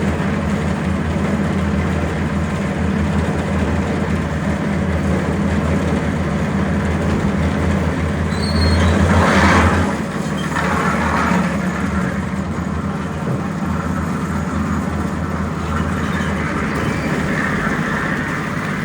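Engine of the job-site machinery running steadily with a low drone. About eight and a half seconds in, a louder rushing, scraping noise lasts about a second and a half, starting with a brief high squeal.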